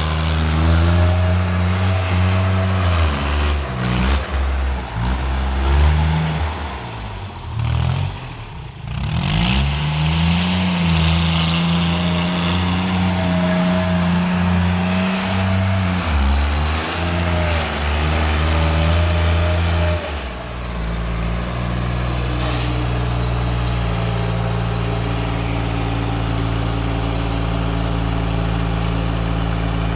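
Sonalika compact tractor's diesel engine revving and changing speed, with a drop and a swoop back up about eight seconds in. From about twenty seconds in it settles to a steady run at one fixed speed.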